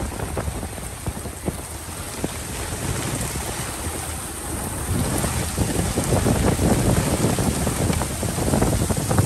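Heavy rain pouring down on a lake, with wind buffeting the microphone as a low rumble; it grows louder about halfway through.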